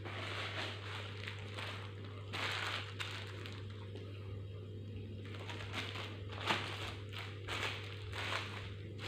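Close-up eating sounds: irregular crunches and rustles of chewing and handling food, over a steady low hum.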